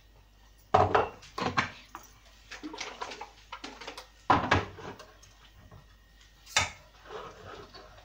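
Kitchen clatter as a can of coconut cream is handled and emptied: several sharp knocks of metal on metal, with smaller rattles and scrapes between them.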